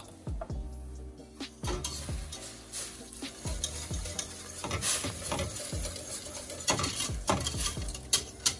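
Wire balloon whisk beating a foamy beer-based sauce in a stainless steel pot, in quick, uneven strokes, the wires scraping and clicking against the metal sides through the sloshing liquid.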